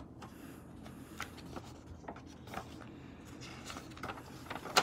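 Pages of a picture book being turned by hand: a run of soft paper rustles and flicks, the sharpest one near the end.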